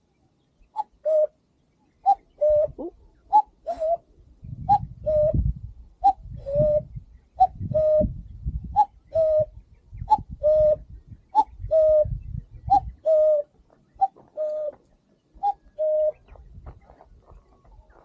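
Common cuckoo calling its two-note "cuck-oo", a higher note falling to a lower one, repeated about a dozen times at an even pace.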